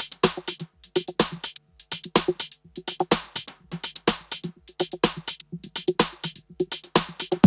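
Electronic background music: a drum-machine beat of quick, evenly spaced percussive hits over a low repeating bass note.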